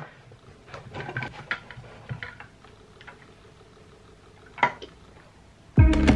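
Scattered light clicks and taps from a plastic tumbler, its lid and straw being handled, with one sharper click later on. Background music starts loudly near the end.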